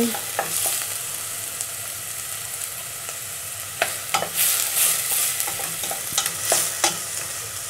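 Chopped onion and garlic sizzling in hot oil in a stainless steel saucepan, stirred with a wooden spoon that now and then clicks and scrapes against the pot.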